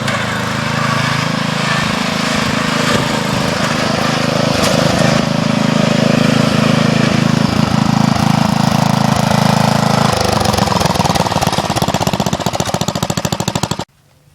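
12 hp MTD lawn tractor engine running loudly with a rapid, even firing pulse. About ten seconds in, the sound shifts and the low rumble drops away; it cuts off abruptly near the end.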